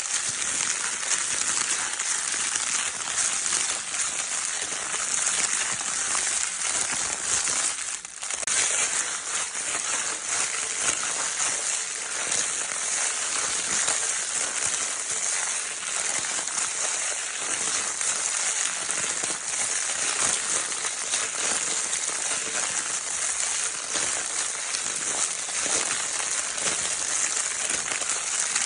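Crinkle paper in a baby's crinkle toy being handled continuously: a dense, steady crackling with many small sharp ticks, briefly easing off about eight seconds in.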